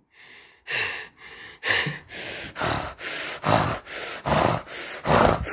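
A rapid run of short, breathy huffs, about two a second, some louder and heavier toward the end.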